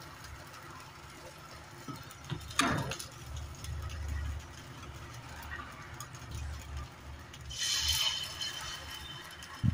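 Soft clinks and knocks of a steel ladle against a cast-iron appe pan as thick batter is spooned into its cups, with a brief ringing metal scrape about eight seconds in.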